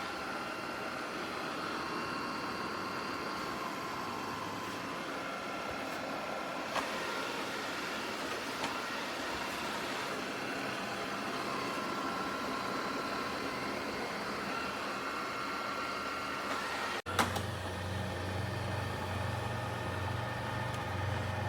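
eufy Omni C20 robot vacuum running with a steady motor whine whose tones shift up and down from time to time; about 17 seconds in it gives way to a lower steady hum.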